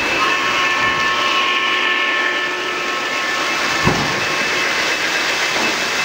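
O-gauge model train running on the layout's track: a steady hiss of wheels and motor with a few steady tones over it, and a single knock about four seconds in.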